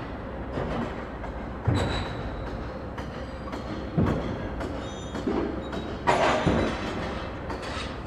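Construction site ambience: a steady rumble of machinery under the clatter of metal objects being hit and dropped, with loud sharp clanks near two, four and six seconds in, some of them ringing briefly.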